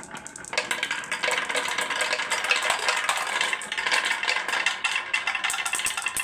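Many marbles clattering and rolling down a HABA marble run, a dense rapid rattle of clicks that swells about half a second in and keeps going.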